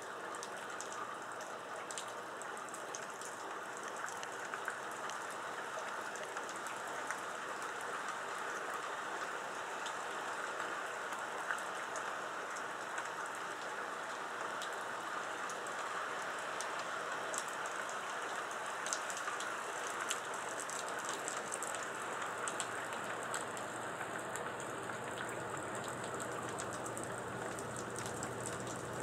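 Steady rain falling, an even hiss with many sharp drop ticks spattering through it.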